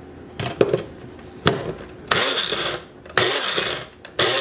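Personal bullet-style blender pulsed in three short bursts of about 0.7 s each, chopping onion, after a few clicks as the cup is pressed down onto the motor base.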